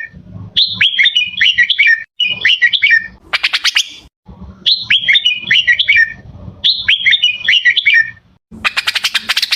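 Red-whiskered bulbul singing short, bubbling phrases of whistled notes, four in a row. Twice, about three seconds in and near the end, there is a fast chattering run of sharp notes.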